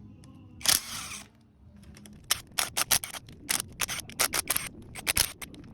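A rapid, irregular series of sharp clicks and knocks, about three to four a second, starting about two seconds in, after one short rustling burst.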